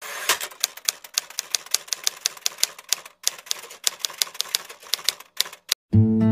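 Typewriter keystroke sound effect: a rapid, slightly uneven run of sharp clicks, about five a second, with a brief pause about three seconds in. The clicks stop just before the end, when low bowed-string music comes in.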